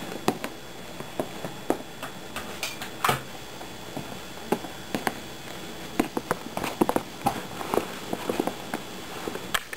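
Irregular knocks and clicks over a low hiss, the sharpest about three seconds in: footsteps and handling noise of someone moving about a room and switching a light on.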